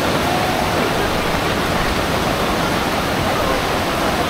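Torrential rain pouring down: a loud, steady, dense hiss.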